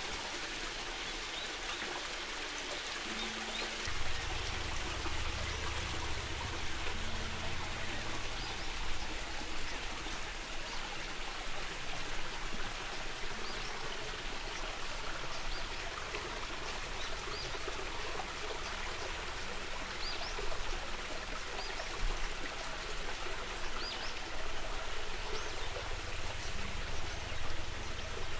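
Steady sound of water, with a few faint high chirps and a low rumble that comes in about four seconds in.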